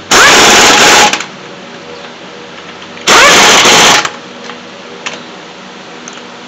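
Impact wrench spinning lug nuts down onto a car wheel's studs, in two loud bursts of about a second each, about three seconds apart.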